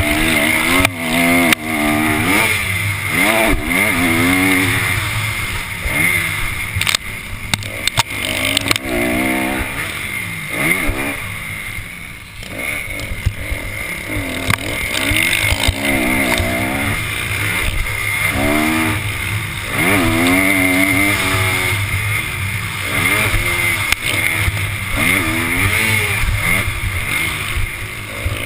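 Motocross bike engine heard from onboard, revving up and falling back again and again as the rider accelerates, shifts and rolls off for turns, over a steady rush of wind. A brief cluster of knocks comes about seven to eight seconds in.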